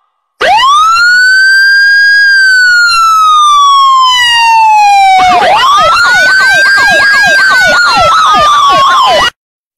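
Electronic emergency-vehicle siren sound effect, loud. One long wail rises, then falls slowly. About halfway through, a second wail rises and falls with a fast up-and-down yelp laid over it, and it cuts off abruptly shortly before the end.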